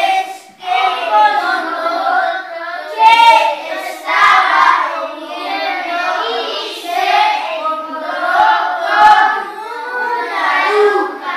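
A class of young children chanting aloud together in unison, a sing-song group recitation.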